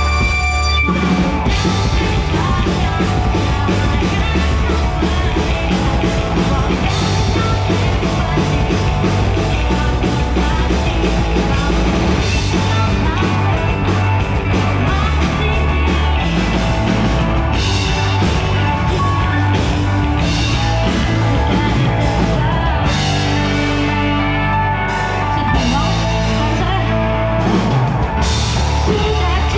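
Live rock band during a sound check, played through the stage PA: drum kit, electric guitar and keyboard, with a woman singing into a microphone. Held keyboard tones give way to the full band coming in about a second in.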